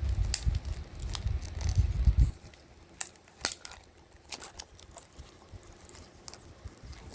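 A plastic Blu-ray case being handled and turned over: low bumps and rubbing for about the first two seconds, then scattered light clicks and crinkles of plastic.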